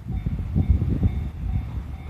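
E657 series electric limited express train passing over a level crossing: a low rumble with repeated thumps that eases off near the end. Under it the level crossing's electronic warning bell rings steadily, about two dings a second.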